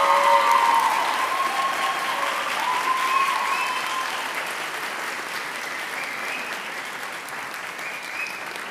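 Audience applauding, loudest at the start and gradually dying away.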